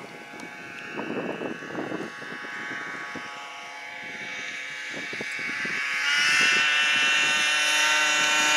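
A snowmobile engine approaching along the trail at a steady pitch, getting steadily louder over the last few seconds as it closes in.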